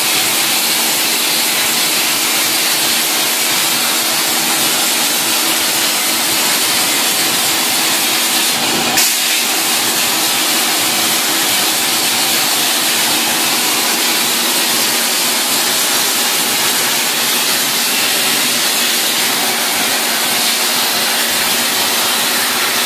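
CNC plasma cutting torch cutting steel plate: the arc gives a loud steady hiss, with a low steady hum underneath. A single brief click about nine seconds in.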